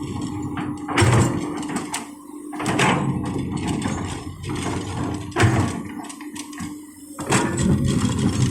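Komatsu PC-200 excavator working: its diesel engine runs with a steady hum and surges about every two seconds as the hydraulics take load during loading, four surges in all.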